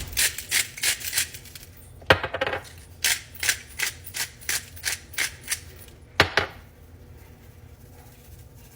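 Seasoning shakers shaken over a steak in quick, even strokes, about three a second, in two runs, with a sharp knock between them and another after the second run.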